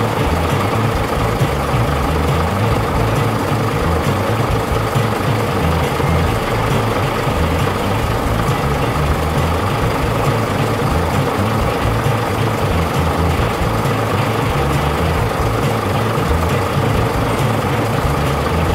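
A truck engine running steadily with a low rumble.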